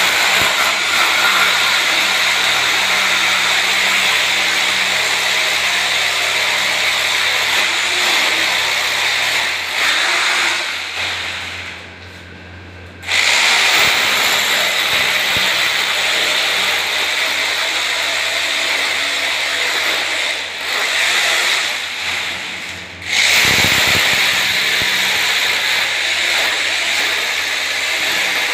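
Corded electric power drill boring into a tiled floor at the base of a wall, running in long steady stretches with two brief stops, one near the middle and one about four-fifths of the way through.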